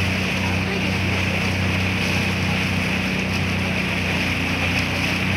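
Speed boat's engine running steadily under way, a continuous low drone, with wind and water rushing past.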